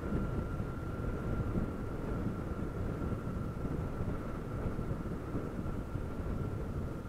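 Honda CG 160 Fan's single-cylinder four-stroke engine running as the motorcycle cruises at a steady pace, with wind rumbling on the microphone and a faint steady high whine.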